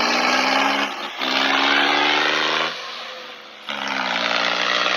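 John Deere tractor's diesel engine running hard at high revs, pouring black smoke under heavy load. The sound breaks off briefly about a second in and drops away for about a second shortly before four seconds in, then comes back just as loud.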